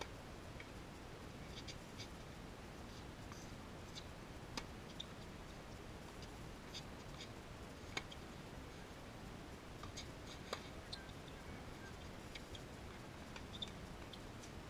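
Faint, sharp pops of a tennis ball struck by rackets during a singles rally, a few seconds apart, over a steady low hiss. The loudest pop comes about eight seconds in.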